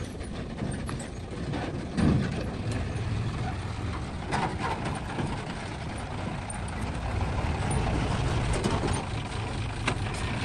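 Nissan Diesel Condor dump truck's diesel engine running as it drives over a dirt track, with a louder surge about two seconds in and a few short knocks around the middle.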